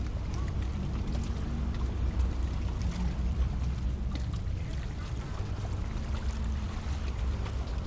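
Sea ambience: water lapping and splashing, with light splashes, over a steady low rumble.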